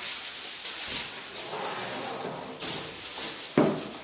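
Crinkling aluminium foil and scraping cardboard as a foil-lined cardboard box is handled and tipped up, with a thump near the end.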